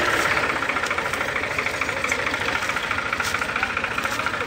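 Al-Ghazi tractor's diesel engine running steadily with an even, rapid beat.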